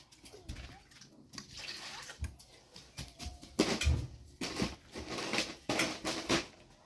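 Water splashing and pouring in irregular bursts, the loudest in the second half.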